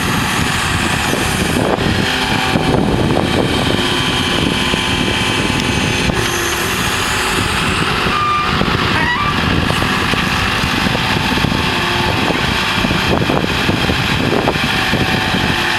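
Skid-steer loader's engine running loud and steady as the machine works.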